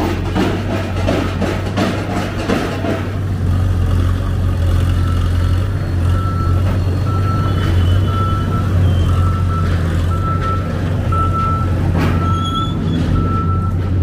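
Heavy construction machinery's diesel engine running with a steady low hum. From about four seconds in, a vehicle warning beeper sounds in an even rhythm, about three beeps every two seconds, like a reversing alarm.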